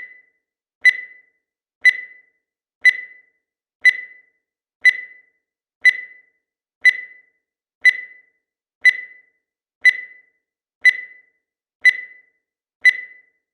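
Digital timer beeping once every second: short, high-pitched electronic beeps, evenly spaced, each dying away quickly.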